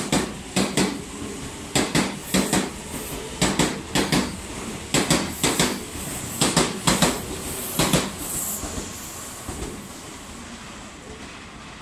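Meitetsu 2200 series electric train pulling out, its wheels clacking over rail joints and points in quick clusters. The clacks stop about eight seconds in and the running noise fades as the train draws away.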